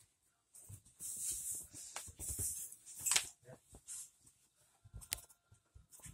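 Clothing rustling and the phone being handled while a shirt is pulled on, in uneven bursts with a few sharp clicks and knocks.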